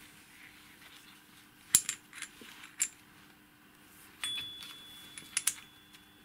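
Small metal parts of a disassembled servo actuator clinking as they are handled: a few sharp clicks, and a little over four seconds in one piece rings with a thin steady tone for about two seconds.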